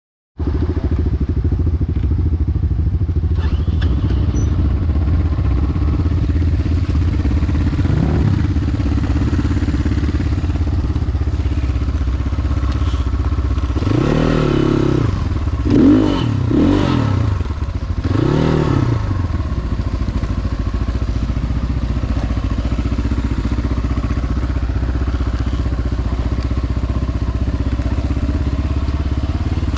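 Motorcycle engine running steadily, revving up and back down three times about halfway through.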